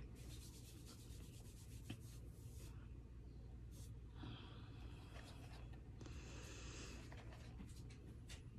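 Faint rubbing of a fingertip on pressed eyeshadow and on bare skin while swatching shimmer shades, coming in several short patches, with a light tick about two seconds in.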